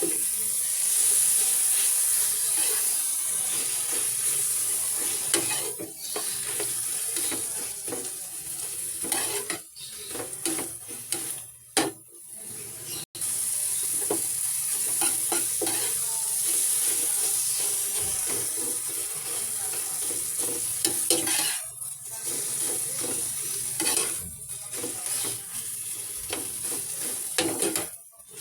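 Food sizzling and frying in a pan while being stirred, with the scrape and clink of a utensil against the pan. The sizzle cuts out abruptly for a moment several times.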